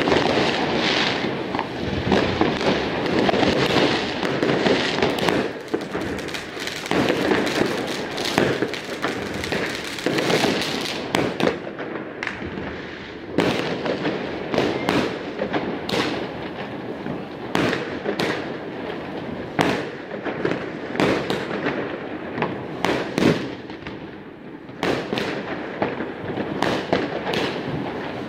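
New Year's Eve fireworks and firecrackers going off all around: a dense crackle with many sharp bangs, several a second at times, near and far.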